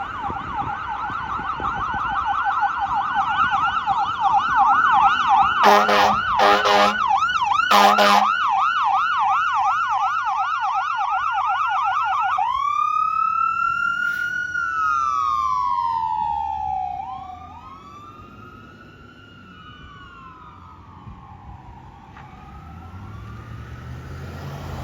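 Fire engine siren in a fast yelp, broken by a few short air horn blasts about six and eight seconds in. About halfway through it switches to a slow rising and falling wail that fades away.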